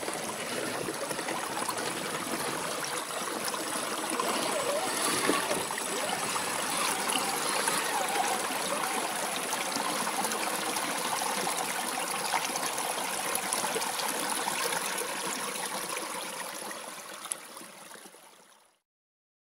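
Shallow rocky creek flowing steadily, fading out near the end.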